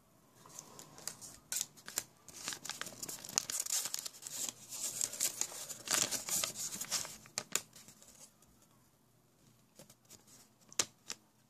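Thin paper instruction sheet being unfolded and handled, crinkling and rustling for about seven seconds, then a few short crackles near the end.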